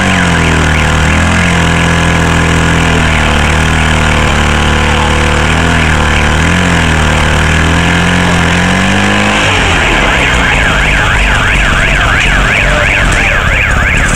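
Engine of the fire pump feeding the hoses running hard and steady, its pitch dipping slightly now and then under load. About nine and a half seconds in, it gives way to a warbling electronic siren that rises and falls about three times a second.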